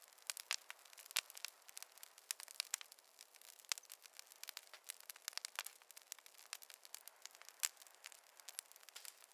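Wood fire crackling: a dense, irregular patter of sharp pops and snaps over a soft hiss, with a louder pop now and then.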